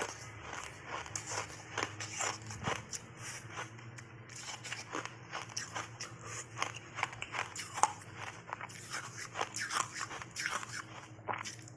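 Block ice coated in matcha powder being crunched and chewed: dense, irregular sharp cracks, the loudest about eight seconds in, over a faint steady low hum.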